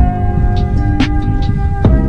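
Background music: sustained chords over a beat with deep, pitch-dropping kick hits about once a second.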